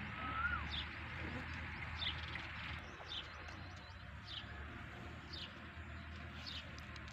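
Village birdsong: a bird repeats a short, high, downward-slurred call about once a second, over a steady low hum. Just after the start a lower animal call rises and then drops.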